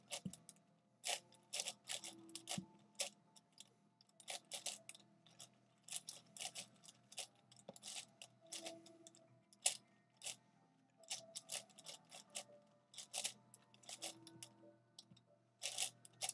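A V-Cube 7 (7x7x7 puzzle cube) being turned fast by hand: quick runs of plastic clicks and clacks as the layers snap round, a few turns a second with short pauses between runs.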